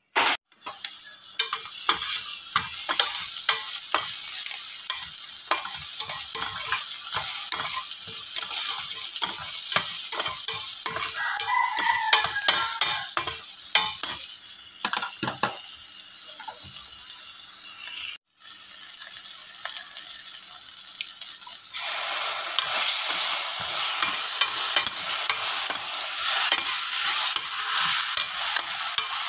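Diced onion sizzling in oil in a stainless steel frying pan, stirred with a spatula that scrapes and taps against the pan. About three quarters of the way through, the sizzling becomes louder and fuller.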